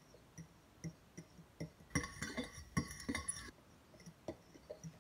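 Metal fork clinking and scraping against a bowl as a child beats eggs. The taps are scattered at first and come fast and close together between about two and three and a half seconds in.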